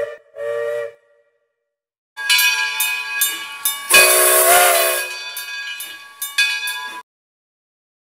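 Two short whistle toots, then after a pause a steam locomotive's whistle blows a run of short toots and one longer blast with a rush of steam hiss, stopping sharply about seven seconds in.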